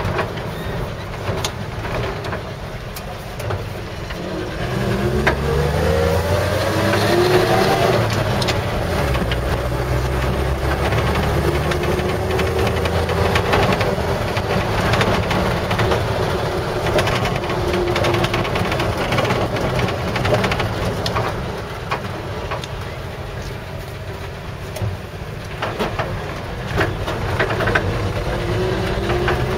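1955 Chevrolet 3100 pickup truck being driven, heard from inside the cab: engine and road noise, with the engine rising in pitch as the truck accelerates about five seconds in and again about ten seconds in, then running steadier and a little quieter later on.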